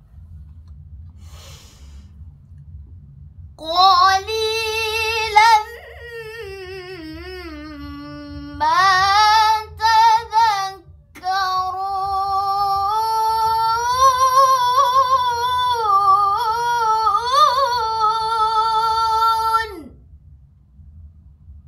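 A girl's voice reciting the Quran in a melodic chanted style (tilawah), in long held phrases with ornamented, wavering pitch and short breath breaks, from about four seconds in until near the end. A low steady hum runs underneath.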